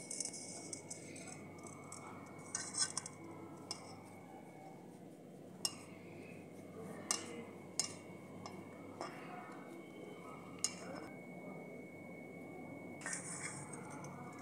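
Scattered metallic clinks as a steel spoon and a wrist bangle knock against an iron karahi, with soft rustling as hands scoop and press a crumbly rice-flour mixture into balls.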